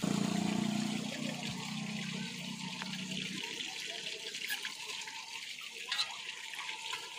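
Chicken pieces deep-frying in a wok of hot oil, sizzling steadily. A low hum runs under it for the first three seconds or so, and a sharp click sounds about six seconds in.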